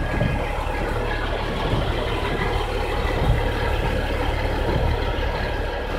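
Yard truck's engine idling steadily, heard from inside its cab, with the even hiss of rain falling on the cab.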